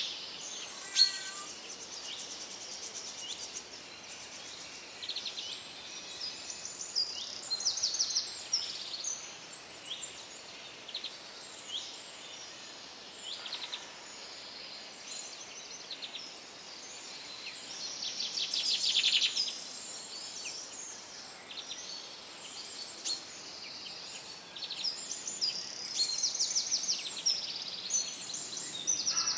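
Several songbirds chirping and singing at once, with fast trills standing out now and then, over a faint steady hiss.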